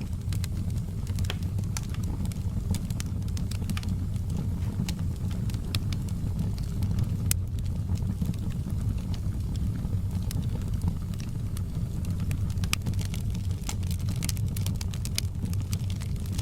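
Wood fire in a fireplace crackling: sharp pops and snaps at irregular intervals over a steady low rumble.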